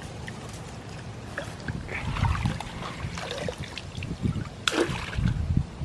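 A wire-mesh crawfish trap being set into shallow pond water: irregular splashing and sloshing, with one sharp splash near the end and low bumping noises.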